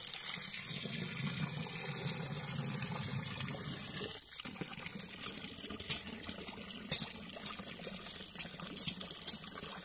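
Drain water gushing and bubbling through a drain blocked with wet wipes. After about four seconds the flow eases into a few sharp drips and splashes.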